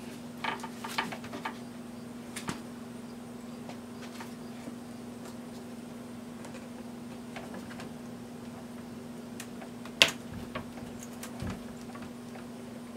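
Small clicks and rustles of a test probe's cable and BNC connector being handled and fitted to a handheld oscilloscope. A few clicks come in the first couple of seconds and one sharper click about ten seconds in, over a faint steady hum.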